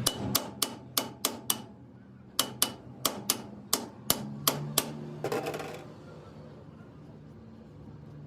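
Hammer striking metal in two quick runs of blows, about three a second, each blow with a short metallic ring. A brief rattle follows the last blows.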